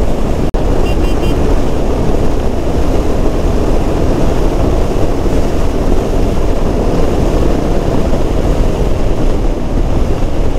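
Steady rush of wind over the microphone, mixed with road and engine noise, from a Royal Enfield Himalayan 450 motorcycle riding at highway speed. The sound drops out for an instant about half a second in.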